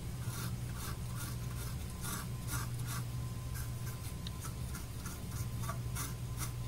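Cotton swab wet with isopropyl alcohol scrubbing a printed circuit board around freshly desoldered chip holes, in quick rubbing strokes about two or three a second.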